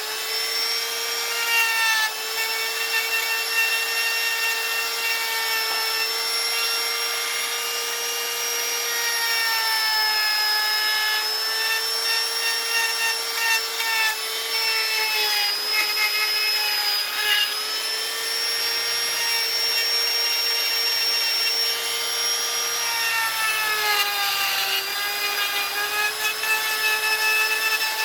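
A high-speed electric rotary carving tool running steadily and cutting into wood: a constant whine with a grinding rasp, its pitch sagging a little at times as the bit takes load.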